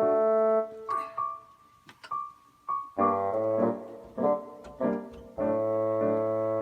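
Background keyboard music: held chords, with a few short single notes in between about a second in.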